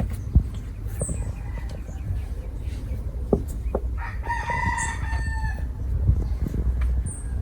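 A single long, drawn-out animal call, steady in pitch for about a second and a half, starting about four seconds in, over a constant low rumble and a few sharp clicks.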